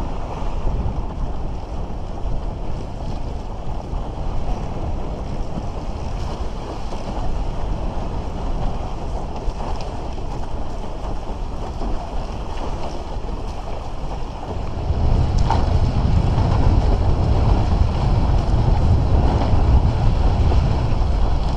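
Wind buffeting the microphone, with water rushing along the hull of a Bic Bamba raceboard under sail. The rumble grows louder about two-thirds of the way through as the board speeds up.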